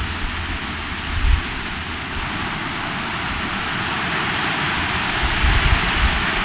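A steady rushing hiss that slowly grows louder and then cuts off suddenly near the end, over irregular low rumbling thumps.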